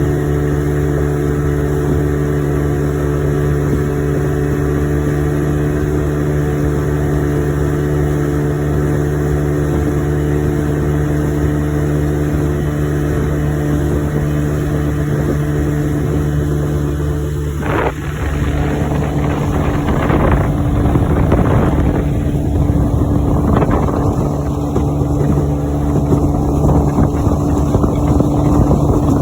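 1985 Evinrude 25 hp two-stroke outboard motor running steadily under way on its newly replaced fuel pump. About eighteen seconds in, the engine note shifts and a rushing noise of wind and water grows louder.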